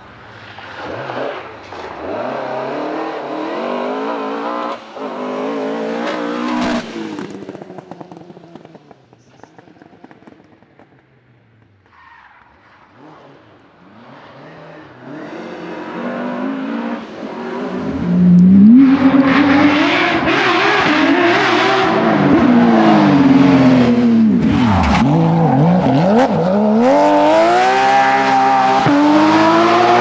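Rally car engines at full throttle. One car revs hard through its gears and fades away over the first several seconds. After a short lull a second car approaches and is loud from about 18 seconds on, its engine note repeatedly rising and then dropping with each gear change and lift-off.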